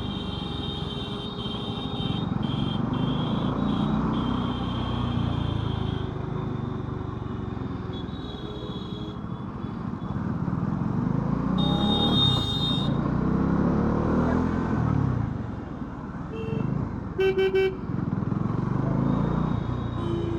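Bajaj Dominar 400's single-cylinder engine running under way, its revs rising and falling as the bike accelerates and shifts, with road noise. Vehicle horns sound several times, with a quick series of short toots a little before the end.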